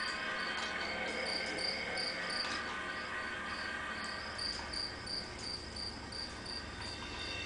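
Crickets chirping in an even, repeating rhythm, a night-time insect chorus from a nature documentary soundtrack played through a television speaker.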